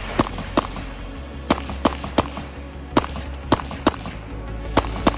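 Gunshots fired in quick succession on a timed competition stage: about ten shots at uneven spacing, some in quick pairs. Music plays underneath.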